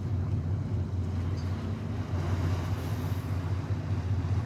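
Motor yacht's engines running steadily, a low rumble, as the boat gets under way.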